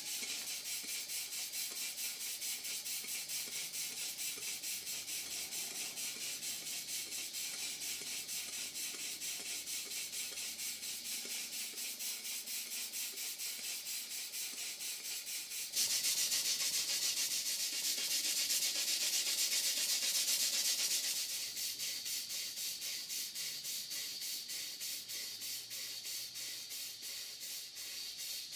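Small horizontal model steam engine running on live steam at low pressure, its exhaust giving a rapid, even, hissing beat. The hiss grows louder from about halfway for some five seconds, then settles back.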